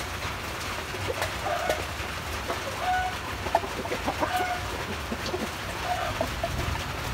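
Chickens clucking: short, even-pitched calls repeated every second or two over a steady background hiss.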